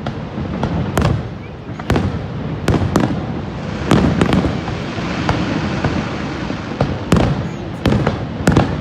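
Fireworks display: a rapid, irregular series of sharp bangs from bursting aerial shells over a continuous low rumble, the bangs coming thickest near the end.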